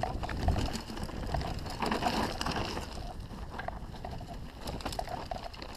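Mountain bike rattling down a rocky trail: tyres crunching over stones and the bike clattering, with many small clicks and knocks over a low steady rumble.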